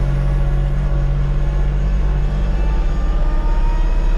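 Hydrostatic compact tractor's engine running under drive, heard from inside the enclosed cab, with the linked-pedal system bringing the engine speed up as the drive pedal is pressed. The pitch rises slightly near the end.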